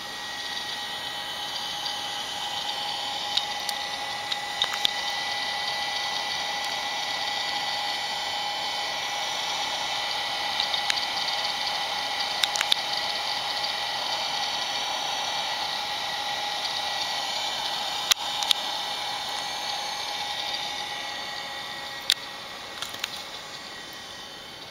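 Steady whirring hiss with several faint high whine tones and a few sharp light clicks, from an opened Macintosh Classic computer running.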